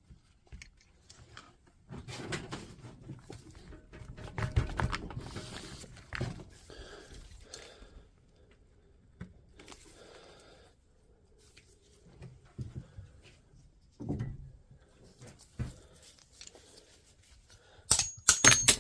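Hand work on a rotary hammer's metal hammer-mechanism parts, freeing a seized striker: irregular scraping and knocking with scattered metal clicks, ending in a few sharp, ringing metal clanks.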